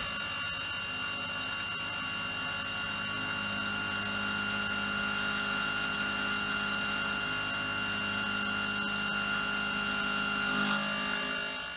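Tormach PCNC 770 mill spindle running with an end mill, facing the saw-cut end of a mild steel bar: a steady whine with a hum beneath, which drops away at the very end.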